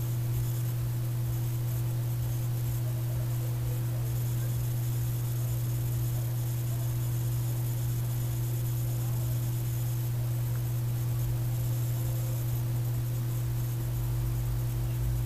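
Steady low electrical hum over an even hiss, unchanging: the background noise of the narration recording.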